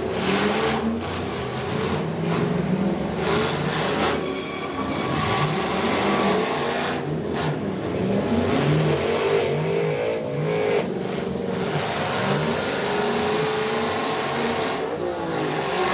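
School bus engines revving up and down as the buses ram and push each other in a demolition derby, over a steady haze of engine and arena noise.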